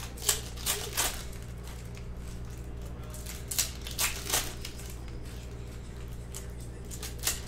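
Plastic trading-card pack wrappers crinkling and tearing as packs of Panini Mosaic basketball cards are ripped open by hand. The sound comes in short crackly bursts: three in the first second, three more mid-way and one near the end, over a steady low hum.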